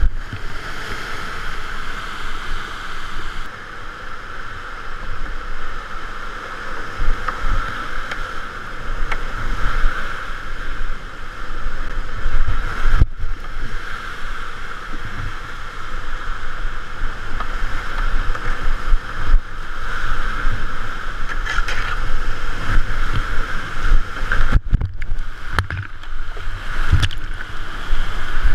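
Whitewater rapids rushing and churning close around a kayak as it runs steep drops, with frequent low thumps of water and hull. The sound cuts out briefly twice, about halfway through and near the end.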